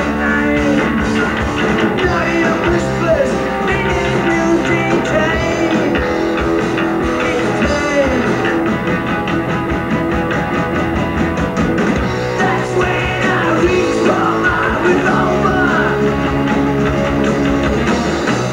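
Rock band playing live through an instrumental passage: electric guitar over bass guitar and drums.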